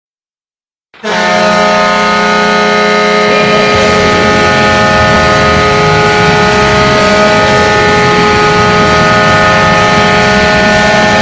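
Atlanta Thrashers arena goal horn sounding one long, loud, steady blast of several tones at once. It starts suddenly about a second in and holds without a break.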